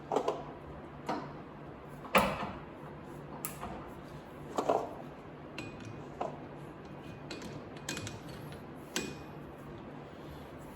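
Spanner and metal parts clinking and knocking as the bolt holding a cast iron gym weight on a lathe arbor is tightened: about eight irregular sharp knocks, the loudest about two seconds in, over a steady low hum.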